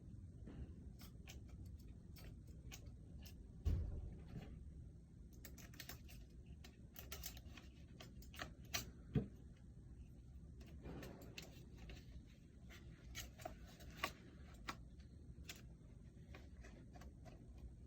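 Faint scattered clicks and light knocks as a replacement cage is handled on a goalie mask and its mounting screws are started, with one heavier low thump about four seconds in and a few sharper ticks later on.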